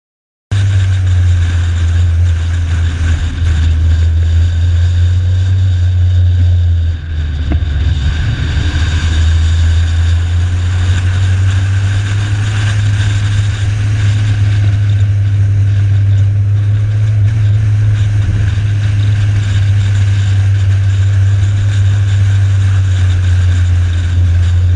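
Onboard sound of a Honda Integra Type R (DC2) being driven around a circuit: a steady, loud engine and wind drone, with one brief drop in level about seven seconds in.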